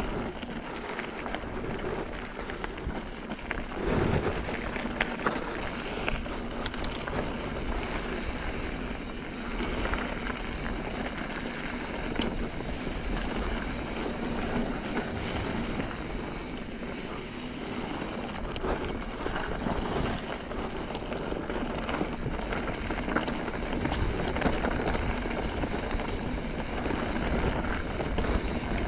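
Mountain bike descending a dirt singletrack: a steady rush of tyres on dirt and wind on the microphone, broken by frequent knocks and rattles as the bike hits bumps.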